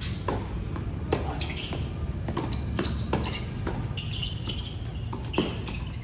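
Tennis rackets hitting the ball back and forth in a doubles rally on a hard court: a string of sharp pops with ball bounces between them. The loudest hits come about a second in and near the end.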